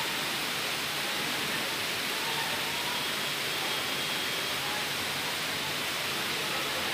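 Steady rush of floodwater pouring through a yard of stacked tyres, an unbroken hiss-like roar that does not let up.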